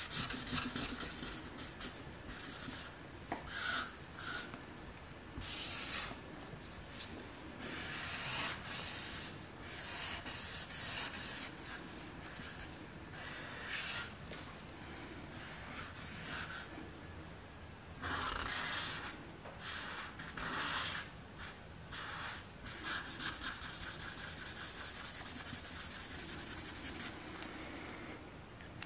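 Felt-tip marker scratching back and forth across paper in quick, irregular coloring strokes, with short pauses between bursts.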